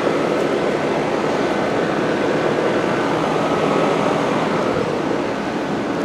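Outdoor heat pump condenser units running: a steady fan whoosh with a faint, even hum.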